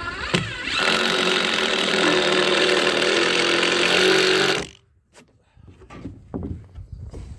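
Cordless impact drill driving a screw into a composite deck board: the motor spins up, runs steadily and loudly for about four seconds, then stops. A few footsteps on the wooden deck follow.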